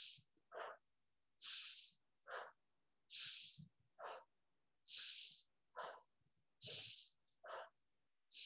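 A woman's deliberate rhythmic breathing, in through the nose and out through the mouth. About five breath cycles come roughly every 1.7 s, each a sharp hissing puff followed by a shorter, lower one.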